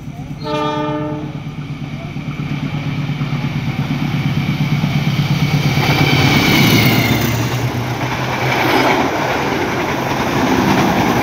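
Diesel locomotive of a passenger train sounds a short horn blast about half a second in, then its engine drone grows louder as it approaches and passes close by. Its carriages then roll past with the noise of wheels on the rails.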